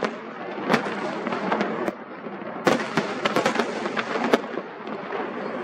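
Fireworks display: aerial shells bursting in a string of sharp bangs, the loudest about halfway through, amid a constant crackle.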